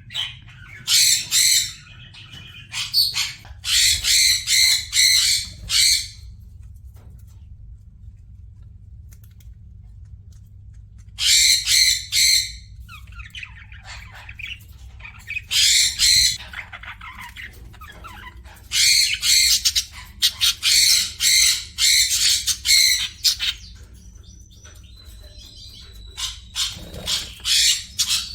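A bird squawking in bouts of rapid, harsh repeated calls, about six bursts of one to three seconds each with pauses between them.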